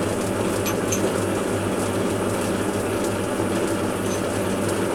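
Metal lathe running steadily while turning a metal bar down in diameter.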